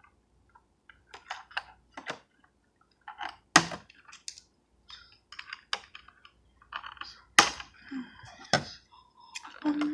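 Scissors snipping at plastic toy packaging, with the plastic crackling: a string of irregular sharp clicks and crinkles, the loudest about three and a half and seven and a half seconds in.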